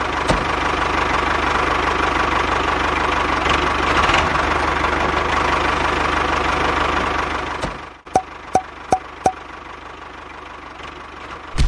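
A tractor engine sound running steadily with a fine, even low pulse, which cuts off abruptly about eight seconds in; four sharp clicks follow at even spacing.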